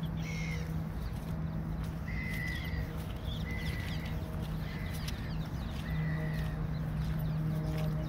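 Birds calling, about five short calls roughly a second apart, over a steady low hum.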